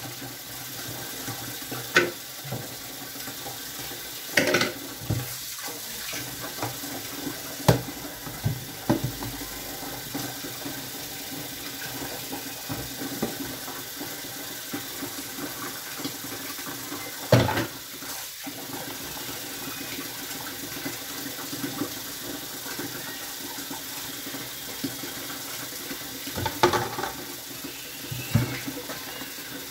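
Kitchen tap running steadily into a stainless-steel sink while plastic cups and containers are washed by hand, with a few sharp knocks as the items bump against the sink and each other.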